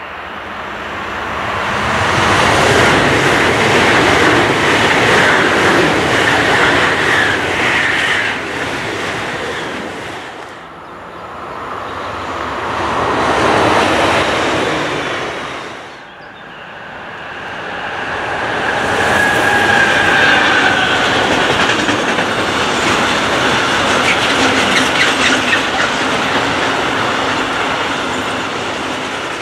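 Trains passing one after another: an ICE high-speed train rushing by, then a red S-Bahn electric multiple unit. After a sudden cut about halfway through, a long freight train of tank and box containers rolls past with a rhythmic clatter of wagon wheels.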